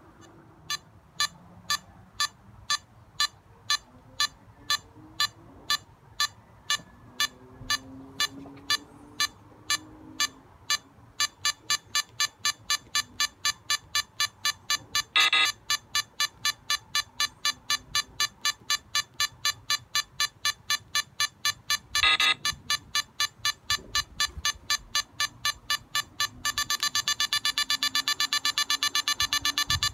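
Smartphone time-bomb countdown app beeping evenly, about twice a second, speeding up to about four beeps a second after roughly eleven seconds, then to a rapid, almost continuous beeping near the end as the countdown nears zero. Two louder, slightly longer sounds break in about fifteen and twenty-two seconds in.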